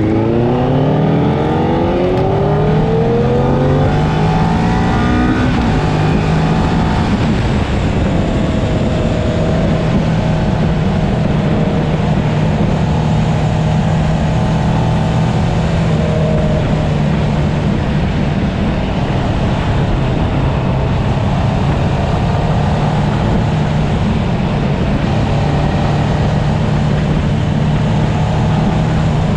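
A 650cc sportbike engine revving up, its pitch rising through the first few seconds, then holding a steady note at cruising speed. Heavy wind noise on the microphone runs under it.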